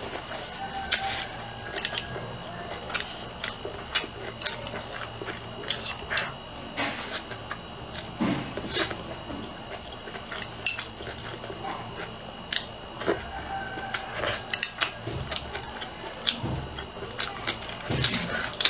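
Close-miked eating: irregular chewing and mouth sounds mixed with chopsticks clicking against a bowl, many short clicks at uneven intervals.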